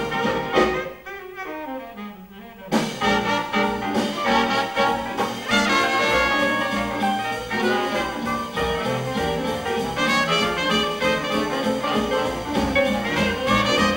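A Dixieland jazz band of clarinet, tenor saxophone, trumpet, trombone, piano, guitar, double bass and drums playing live. About a second in, the band drops back to a short break in which a single line runs downward in pitch. Then the full ensemble comes back in together about three seconds in.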